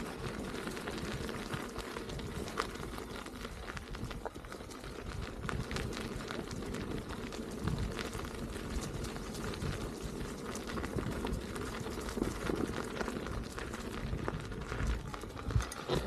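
Rolling noise of an electric unicycle's tyre with wind on the microphone: a steady rush with a low rumble, peppered with many small crackles and ticks from the path surface.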